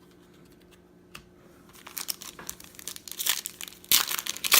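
Foil wrapper of a trading card pack crinkling as it is torn open by hand. Quiet at first, then a run of crackles and tearing that gets louder in the last couple of seconds.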